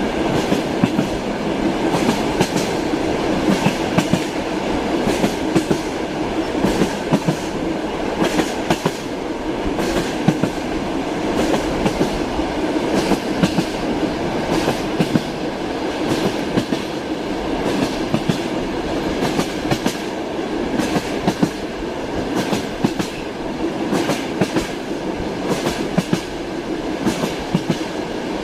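Train wheels clacking over rail joints, a steady run of sharp knocks over a continuous rolling rumble and hum from the moving railway car.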